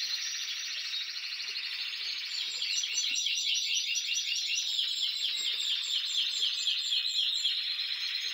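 Many caged Spanish Timbrado canaries singing at once, a dense high chorus of trills. From about two and a half seconds in, one bird sings a fast run of repeated falling notes, about four a second, over the chorus.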